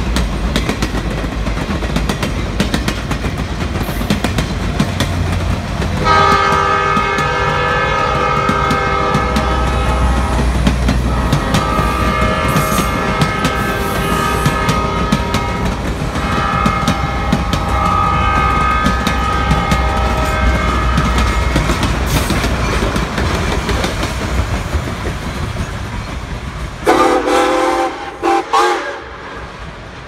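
Passenger train cars rolling past, the wheels clicking over rail joints. From about six seconds in, a diesel locomotive's chime air horn sounds in several long blasts, breaking off briefly a few times and stopping about twenty-two seconds in. Near the end the sound cuts to a short, loud steam locomotive whistle.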